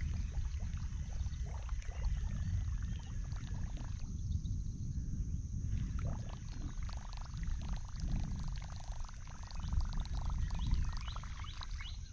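Water splashing and dripping around a kayak in scattered small clicks and splashes, over a steady low rumble of wind on the microphone.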